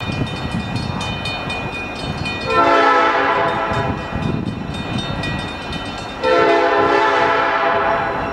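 EMD GP7 diesel locomotive's air horn sounding two long blasts for the grade crossing, each about two seconds. Between and under them the crossing's warning bell rings rapidly and steadily.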